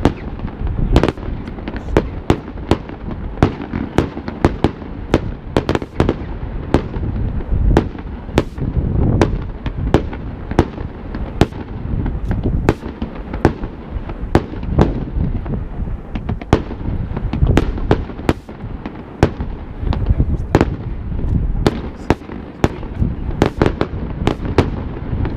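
Fireworks display: a rapid, irregular string of sharp bangs and pops, several a second, over a continuous low rumble.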